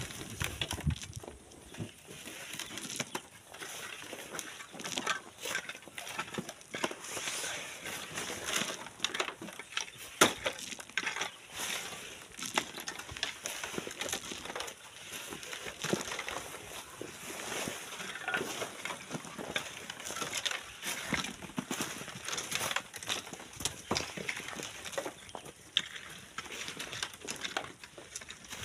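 Hand tools digging into sand and gravel: irregular crunching and scraping with sharp knocks, over a steady hiss.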